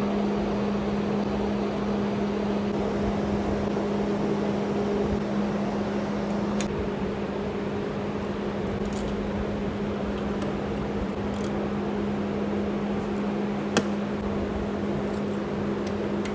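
Steady mechanical hum at a constant pitch, with a couple of brief faint clicks.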